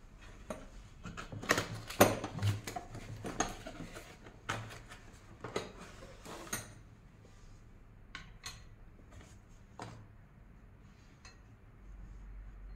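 A small porcelain dish and its wire stand being unpacked from a cardboard box and set down on a glass tabletop: a run of clinks, knocks and rustling, loudest in the first half, then a few fainter taps.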